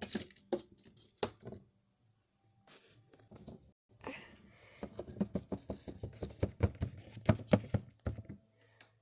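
Quick light clicks and taps of small plastic toys and props being handled, in two flurries: one in the first second or so and a longer, denser one from about four to eight seconds in.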